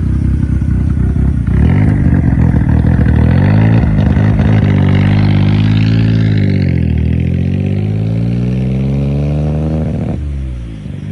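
Turbocharged Perodua Kancil engine pulling hard under boost. The revs climb, fall back around the middle and climb again, then the throttle is lifted about ten seconds in.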